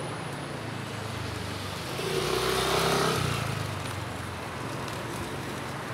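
Street traffic noise, with a motor vehicle passing close and growing louder for about a second, two seconds in, then fading.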